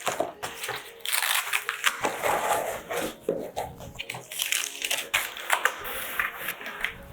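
Cardboard box and packing material being pulled apart by hand: irregular rustling, scraping and crumpling with scattered sharp clicks and knocks.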